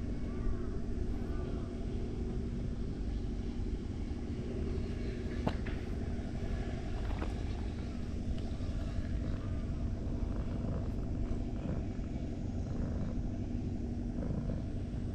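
Steady low rumble of a distant engine with a constant hum, and two sharp clicks about five and seven seconds in.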